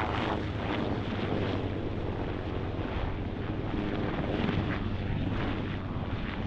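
Marine UH-1Y Venom and AH-1Z Viper helicopters flying low past, a steady rotor beat over turbine noise.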